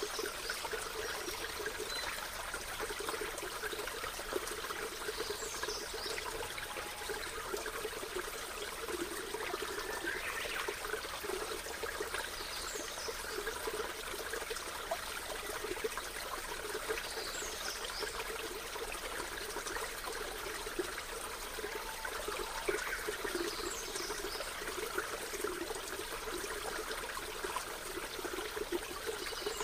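Water trickling and running steadily, with a faint short high chirp every few seconds.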